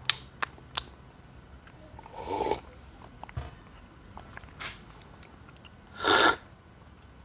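A person slurping coffee to taste it: a slurp about two seconds in and a louder one about six seconds in, sipped straight from a small glass cup. A few light clinks of a spoon on glass come near the start.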